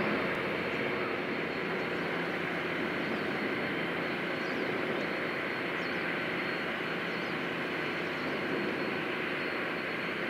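Helicopter destroyer JS Kaga's gas-turbine machinery heard as the ship passes: a steady rumble and hum with a faint held whine, unchanging throughout.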